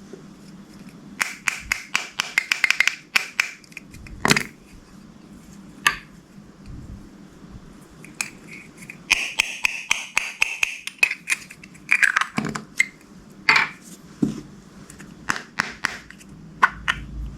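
Slime being squished and pressed by hand, making runs of sharp crackles and pops.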